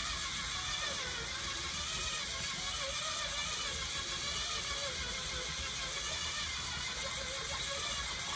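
Electric egg beater running steadily on its low speed setting, whisking eggs in a bowl with a continuous motor whir.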